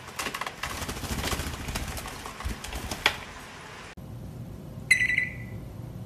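A wet blue-and-yellow macaw flapping and shaking its feathers: a run of rustling, spattering bursts with a sharp click near the end. Then, after a cut, an African grey parrot gives a single short beep-like whistle, the loudest sound here, that dips in pitch as it ends.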